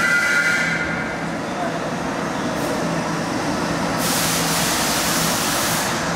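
New York City Subway G train pulling into an underground station: a steady rumble of wheels on the rails, with a brief high squeal in the first second. From about four seconds in a hiss rises over the rumble for about two seconds as the train draws alongside.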